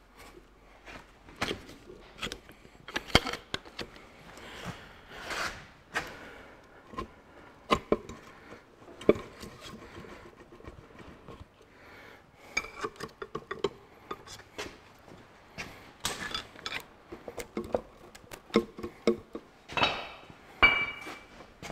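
Irregular metal knocks, clinks and short scrapes from a bar levering a Ferguson 23C diesel's cast-iron cylinder head up off its studs, the head catching on the studs as it lifts.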